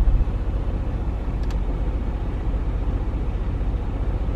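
Steady low rumble inside a semi-truck's cab as it rolls slowly, made up of the truck's engine and strong dust-storm wind against the cab.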